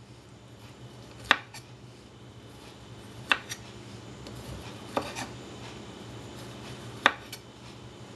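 Chef's knife cutting down through a raw carrot and chopping onto the cutting board, four sharp chops about two seconds apart, as the carrot's edges are trimmed off to round it.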